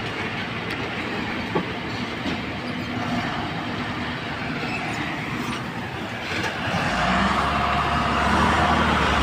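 Dump truck's diesel engine running as it crawls over a rutted, muddy road. It gets louder, with a deeper rumble, as it passes close by about seven seconds in.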